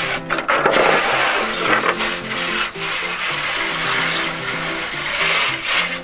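Hose water spraying onto a black plastic air-conditioner part, rinsing off the loosened dirt, a steady hiss and splash that shifts as the part is turned. Background music with a stepping melody plays underneath.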